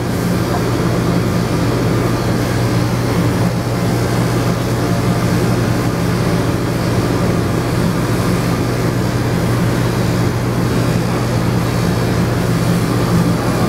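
Electric dog grooming clippers fitted with a guard comb, running with a steady hum as they are pushed forward and back through the hair on a small dog's face.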